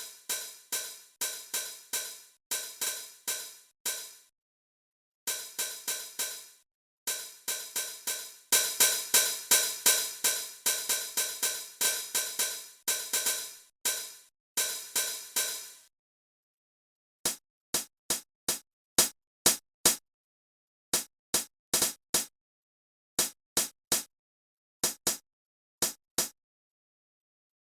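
EGDR909 app's 909-style hi-hat and cymbal samples, struck in quick repeated runs of about four to five hits a second, each ringing briefly. Short gaps separate the runs. After a pause, from about the middle on, come single very short, sharp hits in an uneven rhythm.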